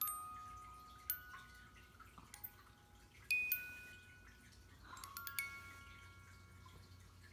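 Bare cylinder music box movement, its pinned brass cylinder plucking a steel comb, playing a slow tune of single notes and small clusters, each note ringing on and fading.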